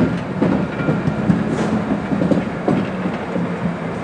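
Electric locomotive rolling slowly past, its wheels knocking irregularly over rail joints and points, over a steady low hum from the locomotive.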